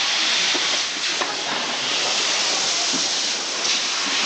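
Steady hissing background noise of a camera assembly floor, with faint scattered clicks and taps.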